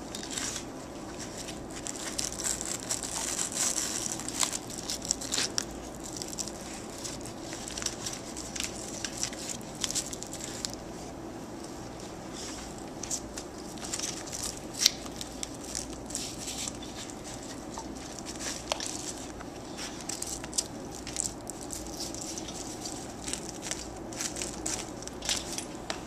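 Velcro straps on a tent backwall being pressed and pulled around a pop-up canopy frame, with the wall fabric rustling: crackling rustles and scattered sharp clicks, busiest a few seconds in. A steady low hum runs underneath.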